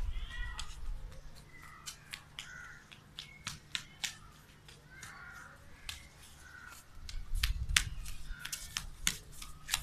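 Crows cawing several times, short harsh calls, over scattered sharp ticks and clicks; a low rumble builds up over the last few seconds.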